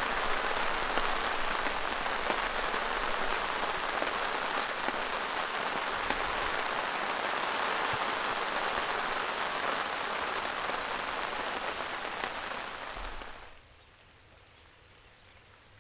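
Steady rain falling on a camp tarp and the surrounding pine branches, a dense hiss full of small drop ticks. About thirteen seconds in it drops away sharply, leaving only a faint hush.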